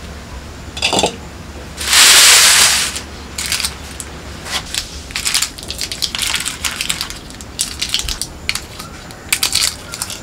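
Dry, papery skins of jackfruit seeds crackling and crunching as they are handled and peeled by hand, in a run of short irregular clicks. A louder rustling rush lasts about a second, starting around two seconds in.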